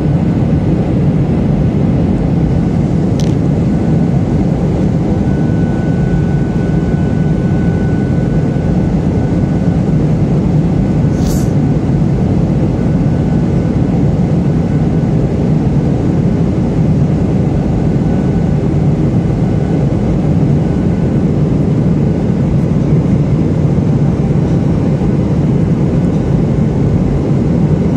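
Steady low rumble of a jet airliner's turbofan engines and airflow, heard from inside the cabin during the descent to landing.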